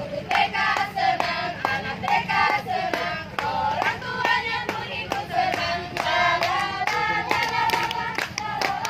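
A group singing a song together with rhythmic hand clapping.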